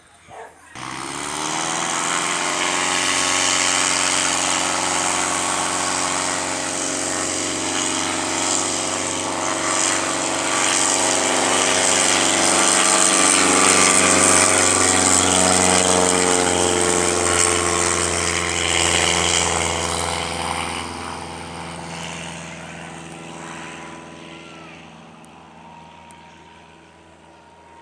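Light propeller airplane's engine and propeller running at high power, coming in abruptly about a second in, loudest around the middle, then fading steadily as the plane flies off.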